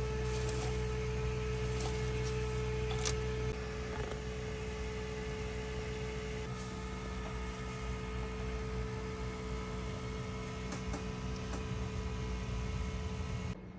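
Steady electrical hum with a held tone that drops out a few seconds in. Over it come a few light clicks and rustles from dried flowers and cage decorations being handled.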